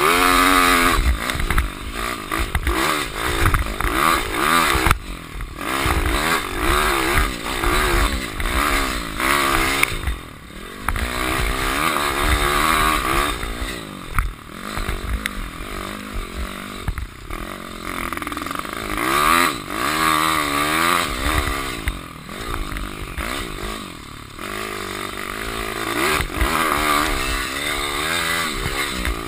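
Pitpro pit bike's 150 cc single-cylinder engine being ridden hard, revving up and falling back over and over as the throttle is worked, with a low rumble of wind on the microphone underneath.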